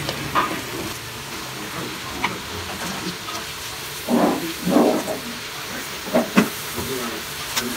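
Pork and bell peppers sizzling in a wok while cooked glutinous rice is heaped in on top, with a steady hiss. There are a couple of louder scrapes about four and five seconds in, and a few sharp knocks against the pan about six seconds in.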